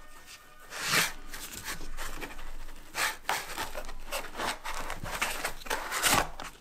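Gimbal being pulled and worked loose from the tight cut-foam insert of its hard case by gloved hands: a run of foam scraping and rubbing, with louder scrapes about a second in, around three seconds and near the end.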